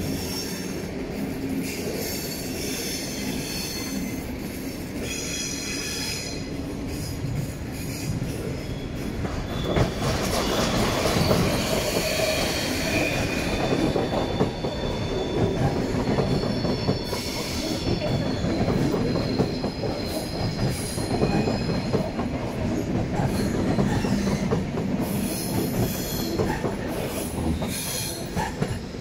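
A train passing beneath and running out over the station's points, with steel wheels squealing high-pitched on the curved track and rattling over the switch joints. It grows louder about ten seconds in as the train comes directly underneath, then fades near the end.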